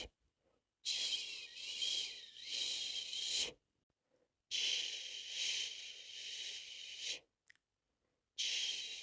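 A person shushing a baby to sleep: long, hissing 'shhh' sounds, each about three seconds, with short silent pauses between. There are two full shushes and a third starting near the end.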